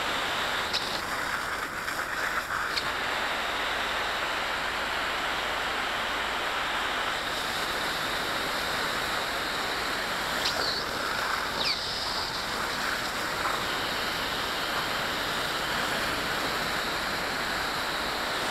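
Steady rush of water spraying from a firefighter's quick-attack hose nozzle, dousing a burning pile of branches.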